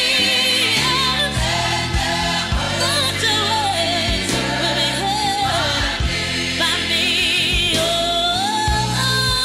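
Gospel music: a song with wavering sung vocals over a bass line and band accompaniment.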